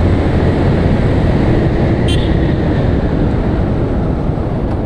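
Motorcycle riding noise from a rider-mounted microphone: wind rushing and the engine and tyres running steadily, with a brief click about two seconds in.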